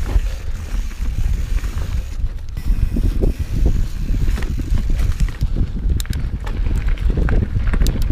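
Santa Cruz Hightower mountain bike rolling over a dirt forest trail: tyres rumbling and wind buffeting the microphone, with sharp clicks and rattles from the bike and trail, more frequent in the last couple of seconds.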